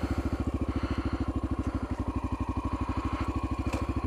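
2012 Honda XR650L's air-cooled single-cylinder four-stroke engine idling with an FMF Q4 exhaust, a steady, even beat of about a dozen pulses a second.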